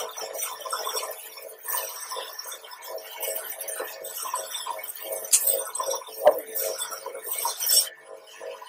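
High-pressure water jet from a pressure-washer gun spraying onto a plastic air-conditioner blower wheel: a steady hiss with a couple of sharp ticks as the water strikes the blades, cutting off near the end.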